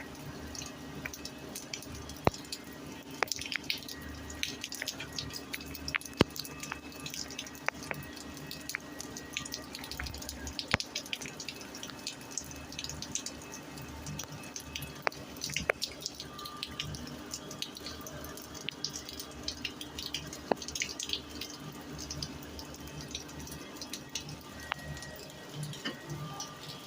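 Rain falling on concrete: a steady wash of water with many individual drops striking the hard surface at irregular moments, some of them sharp and loud.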